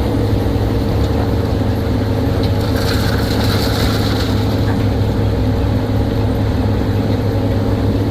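Heavy diesel engine running steadily, a low even drone that does not rise or fall.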